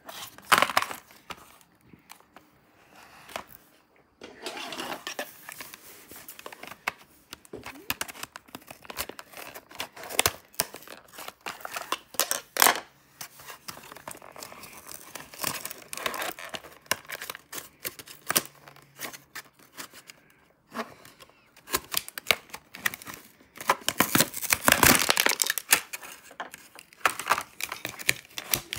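A clear plastic blister pack and its cardboard backing card being torn apart and crinkled by hand, with irregular crackles and sharp clicks of the stiff plastic. The loudest tearing comes about four-fifths of the way through.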